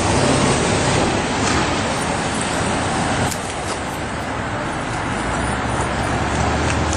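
Steady rumble and hiss of a running vehicle or nearby traffic, with a low hum underneath.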